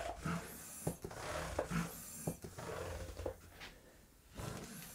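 Hand air pump being worked in repeated strokes, each with a hiss of air and a knock of the handle, pumping up a plastic-bottle air reservoir for a small compressed-air engine. There is a short pause near the end.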